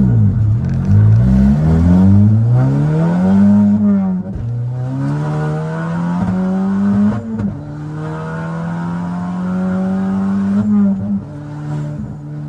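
VW Golf GTI Mk7's 2.0-litre turbocharged four-cylinder engine accelerating hard through the gears of its manual gearbox: the revs climb steadily, then fall back at each upshift, three times.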